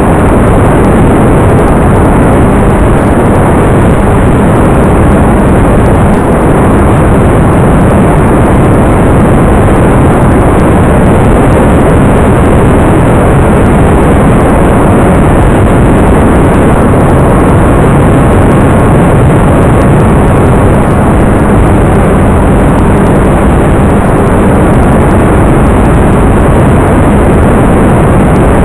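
Loud, steady, unbroken engine-like noise that stays level throughout, with no distinct knocks or changes.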